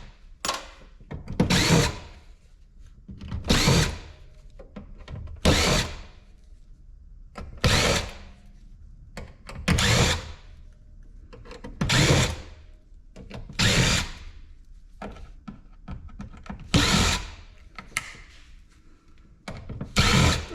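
Power drill driving out screws in short whirring bursts, nine in all, about one every two seconds.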